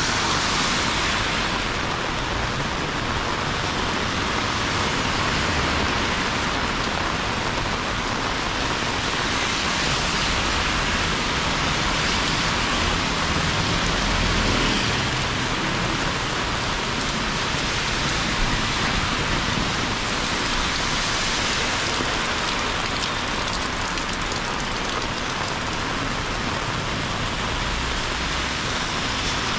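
Heavy rain pouring down on a city street, a steady, even hiss of falling water.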